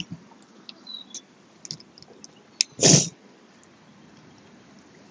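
Boiled crawfish being peeled and eaten by hand: scattered small clicks and cracks of shell, and about three seconds in one short, loud rush of noise at the mouth.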